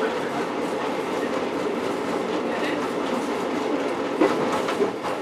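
Vintage diesel rail motor running along the track, heard from on board: a steady rumble of wheels on rail, with two sharp knocks from the wheels about four seconds in.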